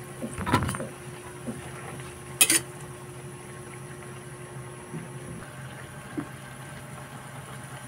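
Leafy vegetables simmering in broth in a metal wok, over a steady low hum. A spatula scrapes and clanks against the pan about half a second in, and strikes it sharply once near two and a half seconds.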